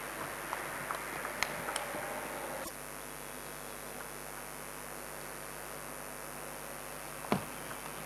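Steady hum and hiss of the hall with a few light clicks of a table tennis ball in the first two seconds. The background drops abruptly about a third of the way in, and one sharp ball strike comes near the end.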